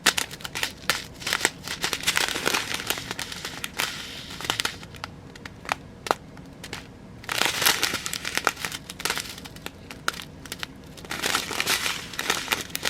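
Small plastic bags of diamond-painting drills crinkling and rustling as they are handled, with many sharp little clicks and a brief lull about halfway through.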